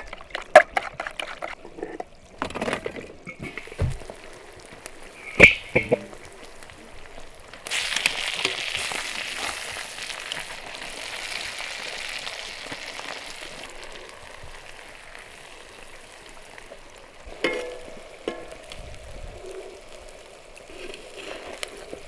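A wire whisk clicks quickly against a bowl while eggs are beaten, with a few knocks. About 8 seconds in, a loud sizzle starts suddenly as chicken pieces fry in a wide iron pan over coals and are turned with metal tongs. The sizzle slowly fades, with a couple of clacks from the tongs.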